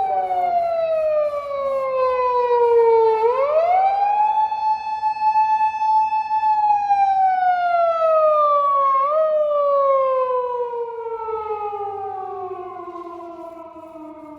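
Japanese police patrol car's manual siren sounded by hand as a warning: a single wailing tone that sinks slowly, is pushed quickly back up about three seconds in and held, then winds down with a short upward nudge midway, and fades as it falls.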